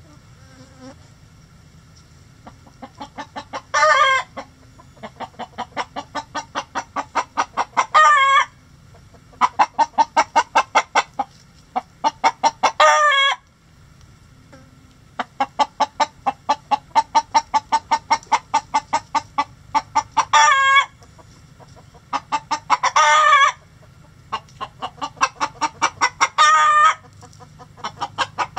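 Chicken cackling: runs of short rhythmic clucks, about four a second, that build in loudness and each end in a loud drawn-out squawk, six times over.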